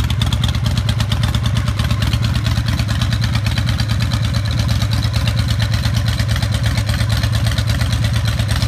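Custom Harley-Davidson V-twin chopper engine idling, a steady, even run of low firing pulses.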